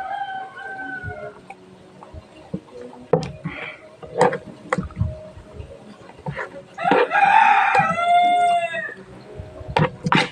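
A rooster crows once about seven seconds in, a long call that rises and then falls and is the loudest sound here. A shorter, lower fowl call comes right at the start. Between them are scattered short smacks and clicks of someone eating noodles.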